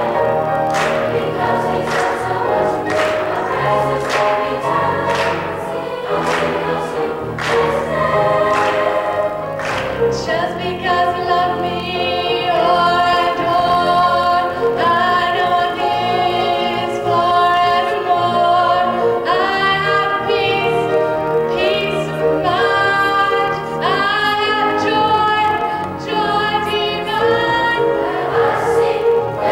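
Large youth choir singing an African-American gospel song with accompaniment. A steady beat runs under the first ten seconds or so, then the voices hold long sustained chords.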